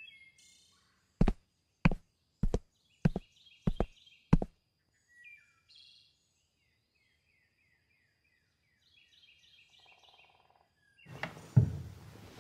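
Six evenly spaced footsteps over faint birdsong, then near the end a rustle and a thump as someone sits down on a bench.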